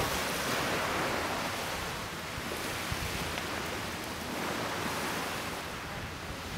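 Small waves washing in, a steady hiss of water that swells twice in slow surges, with a little wind on the microphone.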